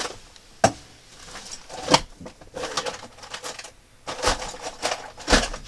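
Objects being handled on a desk: scattered sharp clicks and knocks with some rustling, coming more often in the second half.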